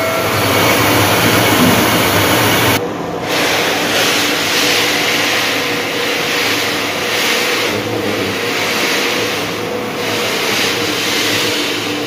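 Small rice-milling machine (chakki) running steadily: a loud, even machine drone with a constant hum under a broad hiss, briefly dropping about three seconds in.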